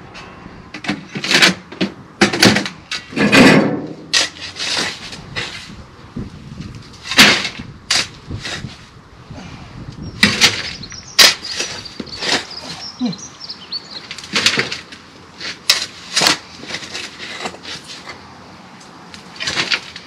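Shovel digging into soil and throwing it into a metal wheelbarrow: irregular scrapes and thuds, one to a few seconds apart.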